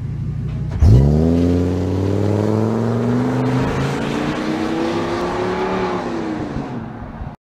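Ford E-350 Econoline's 6.8-litre Triton V10 idling, then accelerating away from a standstill just under a second in. Its engine note climbs in pitch for several seconds, then eases off and fades as the van pulls away, cutting off abruptly at the end.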